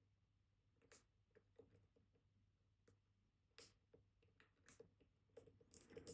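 Faint, irregular small clicks and ticks of a dimple pick moving among the pins of a Kaba Titan Combi dimple lock under tension, with still almost nothing there in the way of a pin setting.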